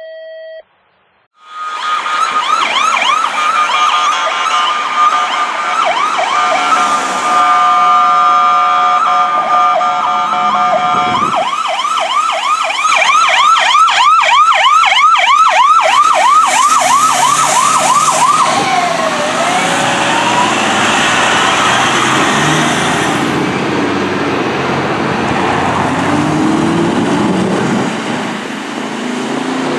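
Several emergency vehicle sirens sound together as a fire company special operations truck, a police car and a fire engine pass through an intersection on a call. Electronic wails overlap, with steady blaring tones about seven to ten seconds in and a fast yelp from about twelve to eighteen seconds in. Engine and road noise from the passing vehicles runs underneath.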